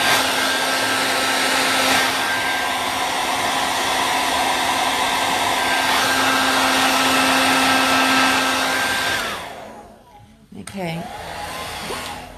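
Hair dryer blowing steadily on a wet watercolour wash to dry the paint. It is switched off about nine seconds in, and its whine falls away.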